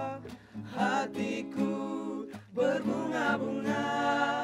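A vocal group singing a pop song in close harmony, the voices breaking off briefly twice.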